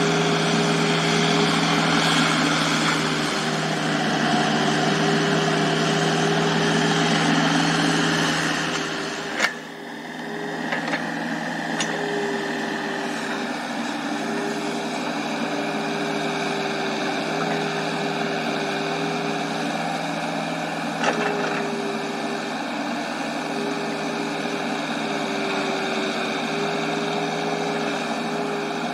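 Komatsu mini excavator's diesel engine running steadily while it digs and clears brush, its hum wavering with the hydraulic load. A sharp click and a brief drop in level come about nine and a half seconds in, with a few faint knocks later.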